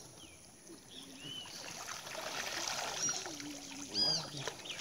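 Water trickling and splashing as people wade in a river and a wet cast net is lifted dripping from the water. A few short, high arched calls sound over it, the loudest about four seconds in.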